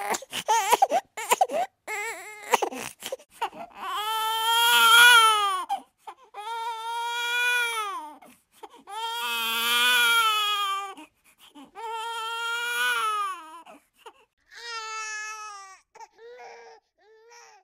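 Baby crying: about five long wailing cries, each a second or two long, falling in pitch at its end, then a couple of short sobs near the end.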